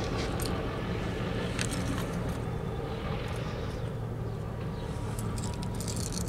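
Diesel locomotive engine running with a steady low rumble as the locomotive moves slowly down the track.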